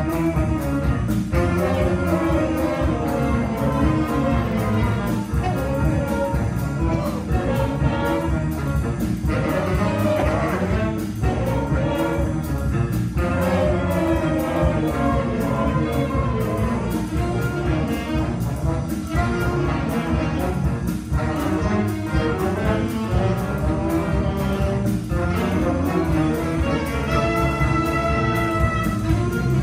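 Jazz big band playing live: saxophones and brass over a steady drum beat. Near the end the horns hold a sustained chord.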